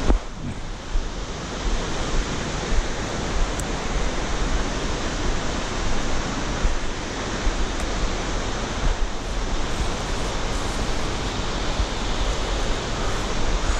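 Wind buffeting the microphone of a first-person camera: a steady rushing noise with low, uneven rumbling gusts.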